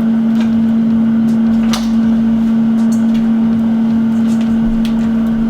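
Steady electric hum of a running kitchen appliance, with a few light clicks and taps, the clearest just under two seconds in.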